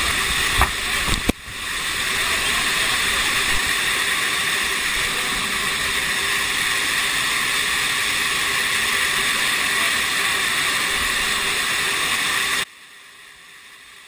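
Waterfall rushing steadily close by, with a few low bumps in the first second or so. It drops abruptly to a much fainter hiss near the end.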